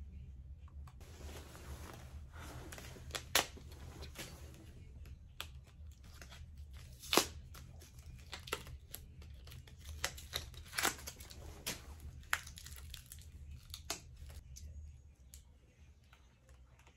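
Plastic packaging crinkling and tearing while a compact camera is handled, with scattered sharp clicks as the battery and memory-card compartment is worked; the loudest clicks come about three and a half and seven seconds in, and a run of them between ten and fourteen seconds.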